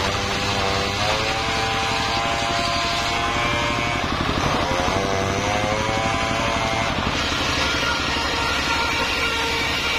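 Circular sawmill blade ripping a mahogany balk, driven by a single-cylinder diesel engine that runs steadily throughout. The blade's whine wavers up and down in pitch as it cuts under load, and settles to a steadier tone after about seven seconds.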